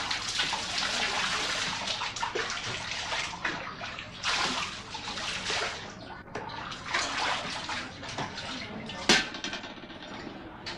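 Water running and splashing, with a sharp knock about nine seconds in.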